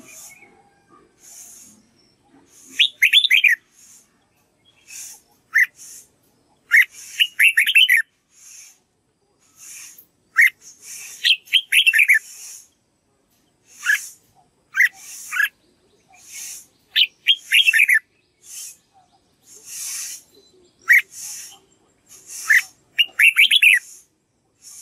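Red-whiskered bulbul singing: short phrases of quick whistled notes, repeated every two to three seconds.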